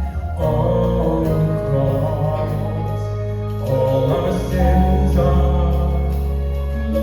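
Music with singing: a choir in a gospel or Christian style over sustained chords and a steady bass.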